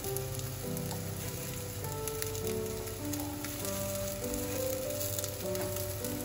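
Black chickpea patties sizzling steadily as they shallow-fry in hot oil in a nonstick frying pan.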